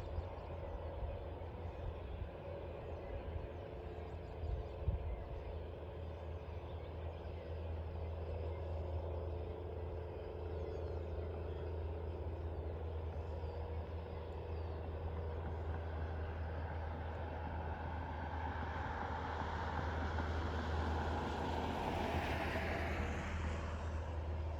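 A road vehicle passing, its noise building over the last several seconds and peaking shortly before the end, over a steady low hum.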